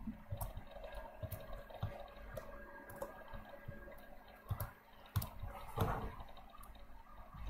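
Faint, irregular clicks of a computer mouse being clicked while selecting and dragging objects, over low room noise.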